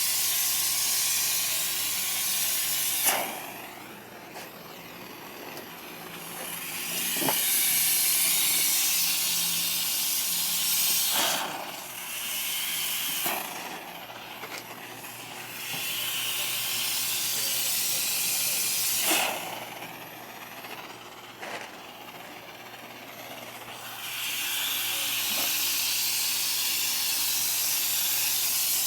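Air spray gun fed by a converted air-conditioner/refrigerator compressor, hissing as it sprays paint in about five bursts of a few seconds each. Each burst starts and stops with a click as the trigger is pulled and released, and a faint low hum runs underneath.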